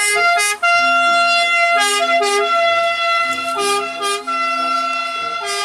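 Electronic siren sound from a toy ambulance's sound unit: a held, reedy high tone that breaks and resumes several times over a lower line of changing notes, like a little tune.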